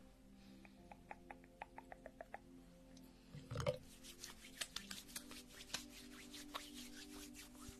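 Soft, steady background music under close-microphone ASMR hand sounds. A run of evenly spaced light ticks comes in the first couple of seconds and a single louder thump about midway, then irregular crisp taps and crackles as hands move right by the microphone.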